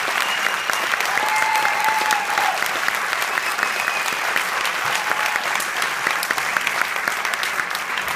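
Audience applauding steadily, with a few faint calls over the clapping.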